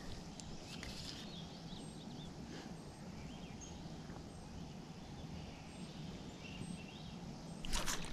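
Quiet lakeside ambience with a few faint, short bird chirps. Near the end, a brief swishing rush as the fly line is ripped up off the water on a strike at a bite.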